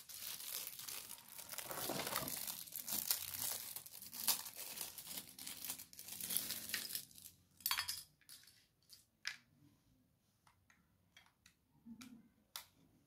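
Clear plastic packaging bag crinkling as it is handled, continuous for about the first seven seconds, then only scattered crackles and small clicks.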